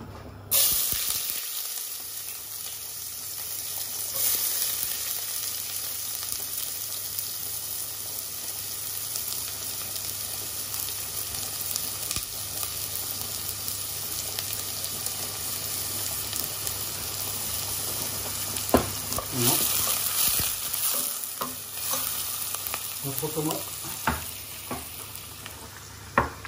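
Chopped onions dropped into hot olive oil in a stainless steel pot, sizzling sharply about half a second in, then frying with a steady sizzle. There are a few brief knocks about two-thirds of the way through as they are stirred.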